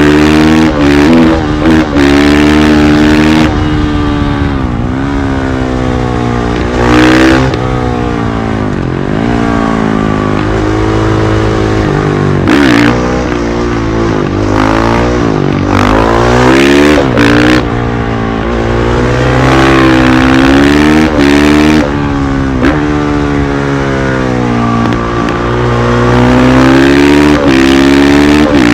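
KTM 500 EXC-F supermoto's single-cylinder four-stroke engine under way, its pitch climbing and dropping again and again as the throttle is opened and closed through the gears.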